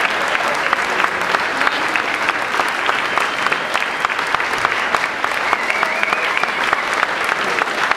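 A crowd applauding steadily, many hands clapping at once without a break.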